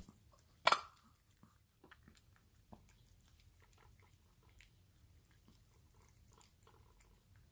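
A dog chewing and crunching its food: scattered small crunches and clicks, with one sharp, louder click under a second in.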